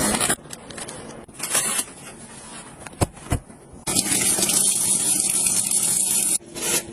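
Household handling sounds: clicks and scraping, then a steady hissing rush for about two and a half seconds that cuts off suddenly.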